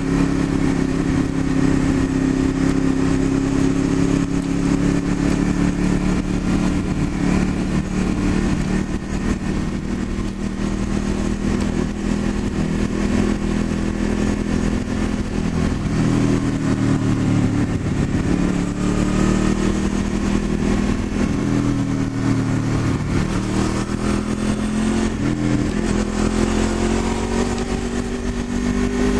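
Honda VFR800's V4 engine running while the motorcycle is ridden along a winding road. The engine note holds steady at first, falls about halfway through, then shifts and climbs again near the end as the throttle is eased off and reopened.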